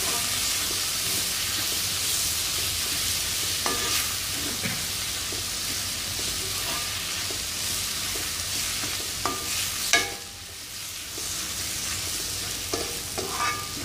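Onions, tomatoes and sliced coconut sizzling in oil in an aluminium kadai while being stirred with a metal spatula, which clinks and scrapes against the pan now and then. The sharpest clank comes about ten seconds in, and the sizzle dips briefly after it.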